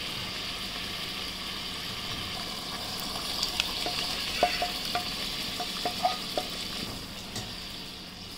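Tomato curry gravy bubbling in a pan with a steady sizzling hiss. Partway through, grilled paneer tikka pieces are tipped in and stirred with a spatula, giving a string of light taps and clicks against the pan.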